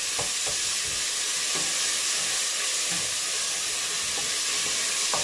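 Chopped onions sizzling as they fry in olive oil in a stainless steel pot, a steady hiss, while a spatula stirs them with a few soft scrapes against the pot.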